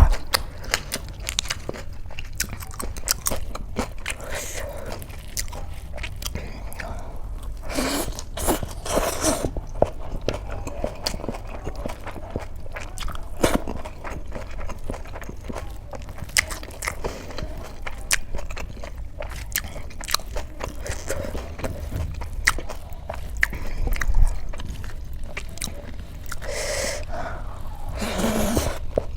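Close-miked eating: a person biting and chewing food, with a steady run of small crunches and mouth clicks and a few longer, noisier mouth sounds.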